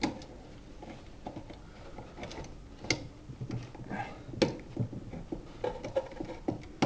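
Scattered small clicks and taps of hand tools and stiff copper wire at an electrical outlet, as the black wire is hooked around the outlet's terminal screw.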